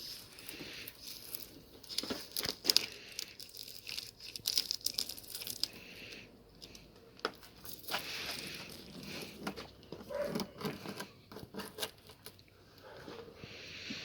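A knife cutting and tearing through tape stretched over a shattered car rear window, with irregular crinkling, scraping and many small clicks.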